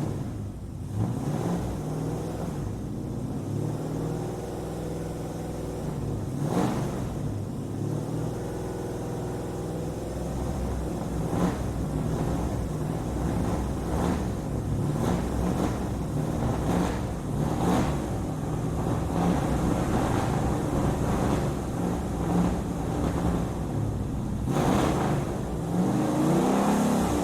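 Muscle car engine running at idle after start-up, revved briefly every few seconds, with a longer, stronger rev near the end.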